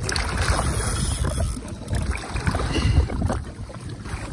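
Wind buffeting the microphone over water sloshing around a jet ski at sea, with a brighter rush of hiss in the first second or so.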